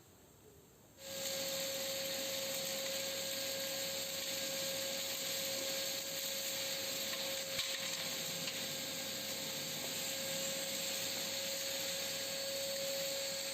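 Workshop vacuum cleaner fitted with a bucket cyclone separator, running steadily: a rush of air with a thin steady whine, starting abruptly about a second in.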